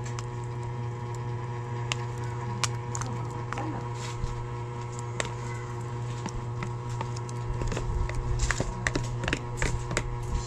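A plastic scoop scraping and tapping flaked fish out of a plastic tub into a wok, small sharp clicks scattered throughout and busier near the end, over a steady low hum.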